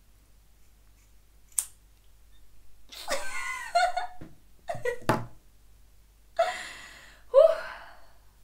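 A single sharp snip of scissors closing through hair about a second and a half in, then a woman laughing and gasping in several breathy bursts.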